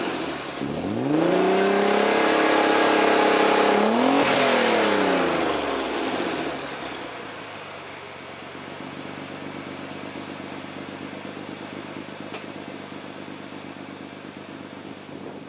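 Nissan 300ZX twin-turbo VG30DETT V6 through a GReddy SP1 exhaust with test pipes and a non-resonated H-pipe, revved: it dips, rises and is held at higher revs for a few seconds with a second blip, then falls back. It settles to a steady idle for the rest.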